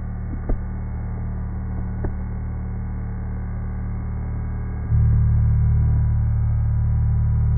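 Battery-powered toy bubble gun's fan motor running with a steady low hum, which jumps abruptly louder about five seconds in. A couple of faint clicks come early on.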